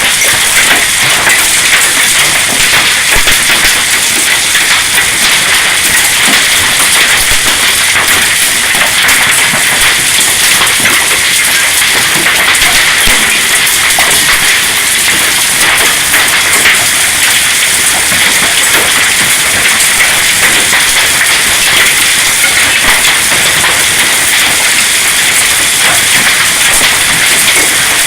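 Hail and heavy rain coming down hard: a loud, steady, dense patter of countless small impacts.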